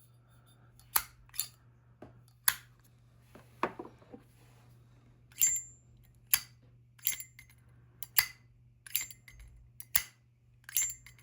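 Zippo lighter lids snapping open and shut over and over: sharp metallic clicks, many in close pairs, a few leaving a brief high ring. The click's tone depends on the case metal, such as sterling silver, copper, brass, chrome or thick armor.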